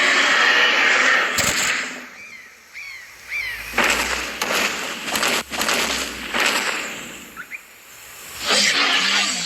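Tyrannosaurus rex roar sound effect: three long, rough roars, one at the start, one in the middle and one near the end, with quiet gaps between them. A few short chirps are heard in the first gap, about two seconds in.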